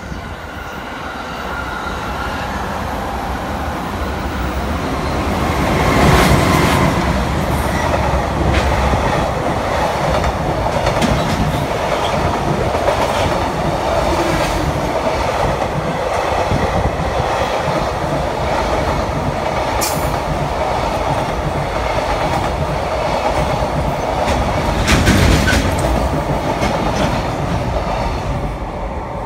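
Container freight train hauled by an EH500 electric locomotive passing through at speed, its wheels clattering over the rail joints wagon after wagon. The sound builds over the first six seconds and falls away near the end as the last wagon goes by.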